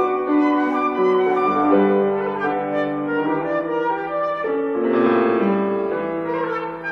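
Instrumental introduction to a classical romance: accompaniment playing held notes and chords that change every second or so, with no voice.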